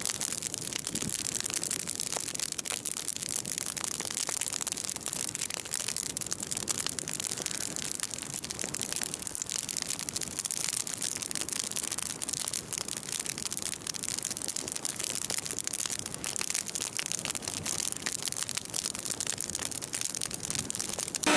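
Bonfire of logs and brush burning, with steady crackling and popping.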